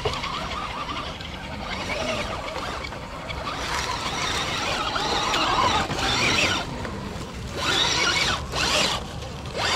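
Small electric motors and geared drivetrains of 1/10-scale RC crawlers whining as they climb a slope, swelling in short bursts of throttle, with dry leaves crackling under the tyres.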